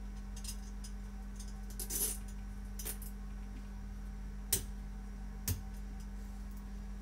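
Several sharp clicks and taps of plastic toilet-seat fixing lugs being handled and fitted into the mounting holes of a ceramic toilet pan, the loudest about four and a half seconds in, over a steady low hum.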